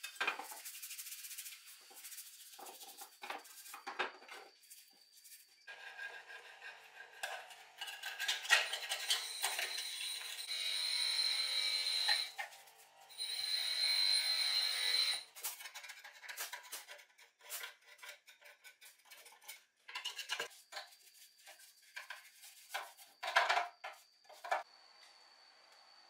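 Stiff brush scrubbing chainsaw parts and a plastic chainsaw housing in soapy wash water: irregular scrubbing, scraping, sloshing and light knocks. In the middle a steady high whine comes in twice, about two seconds each, louder than the scrubbing.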